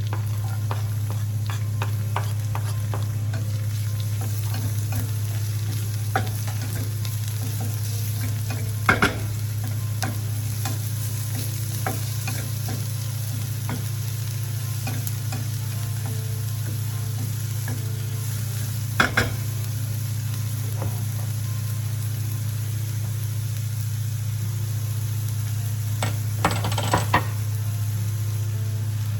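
Food frying in a pan with a light sizzle while it is stirred, with occasional sharp knocks of a utensil against the pan, several coming in quick pairs. A steady low hum runs underneath.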